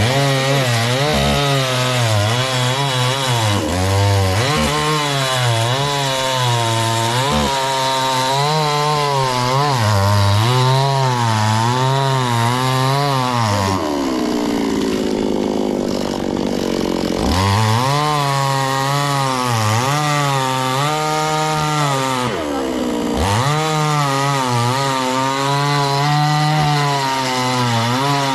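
Two-stroke chainsaw cutting into coconut palm wood. Its engine pitch wavers up and down as it loads in the cut and recovers. About halfway through the engine drops low for a few seconds, then revs up again, with another short dip a few seconds later.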